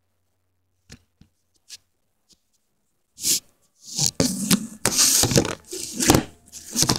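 A few faint clicks, then from about three seconds in, loud rubbing, scraping and knocks as the recording camera is picked up and handled, with fingers and fabric brushing right over its microphone.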